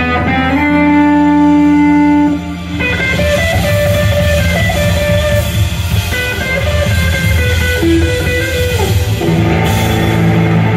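Live electric guitar solo with a rock band: the guitar sustains one long held note, then from about three seconds in moves into quick, busier phrases with drums and bass filling in behind.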